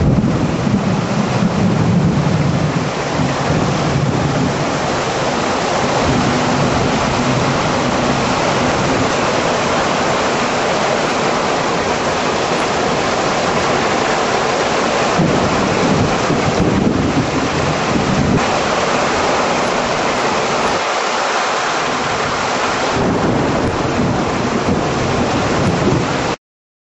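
Thunderstorm with heavy rain and wind making a dense, steady roar. Low rolls of thunder come near the start and again about two-thirds of the way through. The sound cuts off suddenly near the end.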